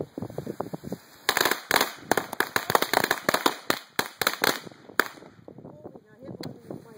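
A pack of Cutting Edge ladyfinger firecrackers going off. After some softer crackles, a rapid, irregular string of sharp small bangs starts about a second in and runs for roughly four seconds, with one more bang near the end.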